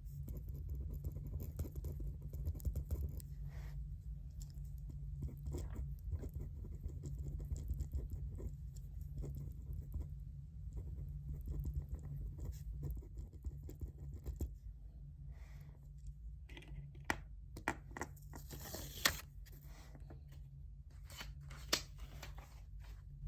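Desk study sounds: writing scratching on paper and paper rustling, with a few sharp clicks and a louder rustle about 19 seconds in, over a steady low hum.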